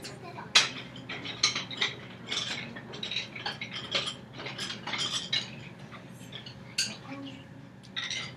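Wooden rhythm sticks clacking and clattering as they are handed out and handled, irregular sharp clicks with no steady beat, busiest in the first half and thinning out later.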